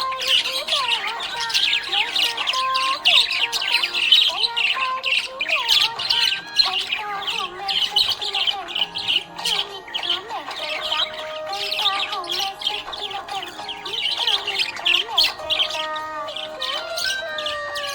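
Small pet parrots chattering and chirping without pause, a dense stream of quick, high calls, over background music with held notes.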